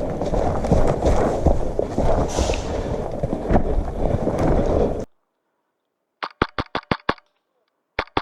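Heavy rustling and movement noise from someone moving fast, which cuts off abruptly about five seconds in. Then an airsoft rifle fires two short bursts of sharp snaps, six and then four, about seven shots a second.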